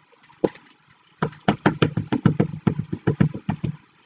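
Rapid dabbing of a Distress Ink pad onto a large red rubber background stamp to ink it: a single tap, then a quick run of taps at about eight a second for two and a half seconds.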